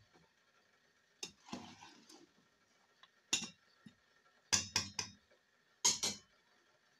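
Metal ladle clinking and knocking against the side of a metal cooking pot during stirring: short, sharp taps, several of them, coming in small groups of two and three.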